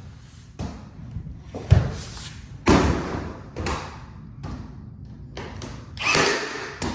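RIDGID 18V cordless 18-gauge brad nailer firing brads into trim: several sharp thuds at irregular intervals, each followed by a short noisy tail. The loudest is just under two seconds in.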